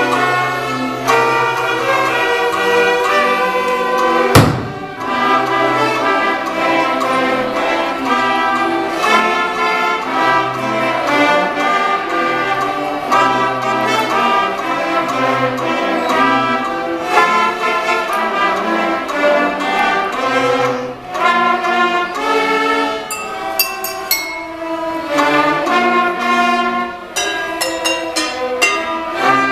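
Children's orchestra playing a lively piece, with one loud, sharp percussion hit about four seconds in and a run of quick percussive clicks near the end.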